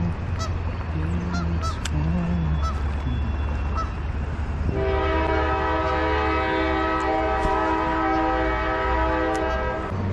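A long, steady horn blast that starts about halfway through, holds one unchanging chord for about five seconds and then cuts off.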